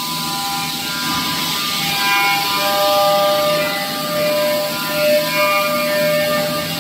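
Five-axis CNC router with four spindles machining wood: several spindle whines at different pitches, shifting as the heads cut, over a steady hiss of cutting noise.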